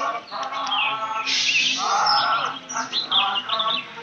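Several birds chirping and calling in short, sharp notes, over background voices.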